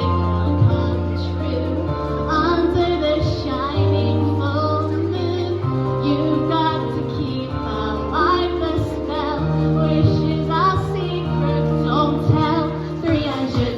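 A woman singing a slow pop song over a backing track with sustained bass notes.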